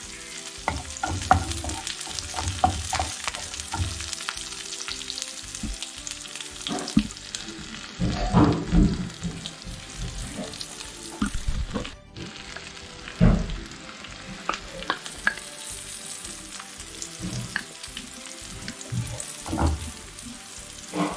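Garlic, dried red chillies, green chillies and curry leaves sizzling in hot coconut oil in a small frying pan: a spice tempering for a chilli sauce. A wooden spatula stirs and scrapes the pan, with louder clatters about eight and thirteen seconds in.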